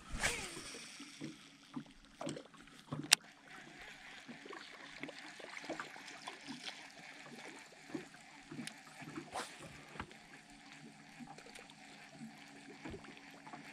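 Small waves lapping against a fishing boat's hull, with scattered light clicks and knocks from rod and reel handling. A brief whoosh comes right at the start, and one sharp click about three seconds in.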